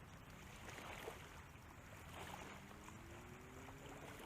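Quiet waterside ambience with faint water sounds and a few small ticks. About halfway through, a faint low hum comes in and slowly rises in pitch.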